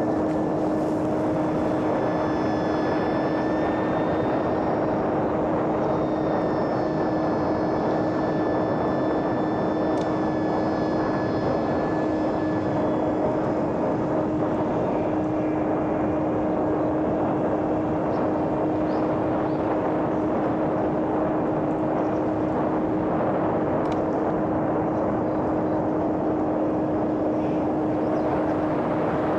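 A homemade electric radio-control airplane's brushless motor and propeller running at one steady pitch, over an even rush of air noise.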